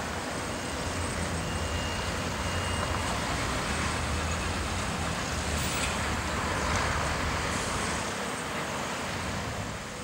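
Road traffic crossing a level crossing: a heavy diesel concrete mixer truck drives over, its engine and tyres growing loudest about six to seven seconds in, over a steady low engine hum.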